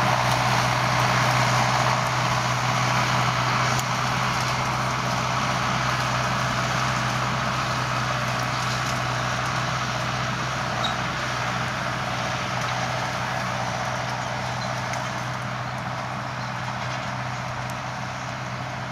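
Diesel farm tractor running steadily while working machinery in the field. It has a constant low engine tone with machinery noise above it, gradually getting quieter as it moves away.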